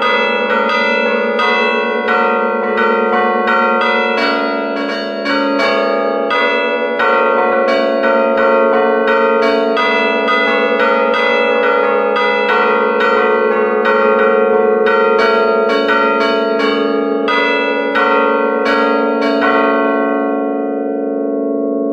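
Bronze church bells struck in quick succession by their clappers, played from a bellringer's keyboard in the belfry, a fast rhythmic ringing of several notes. Near the end the strikes stop and the bells ring on, fading.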